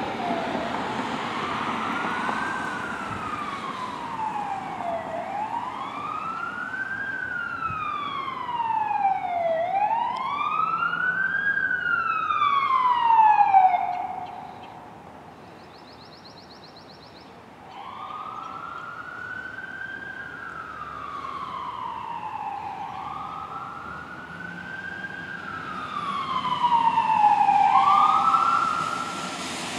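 Fire engine siren sounding a slow wail, its pitch rising and falling about every four to five seconds. It cuts out for a few seconds midway, then resumes and grows louder near the end.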